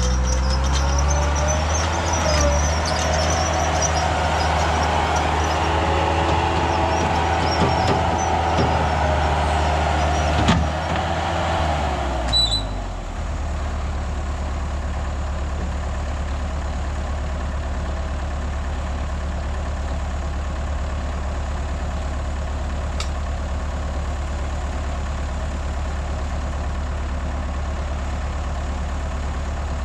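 Heavy earthmoving machine's engine working under load with a whine over it and a couple of clanks, then dropping about halfway through to a steady low idle.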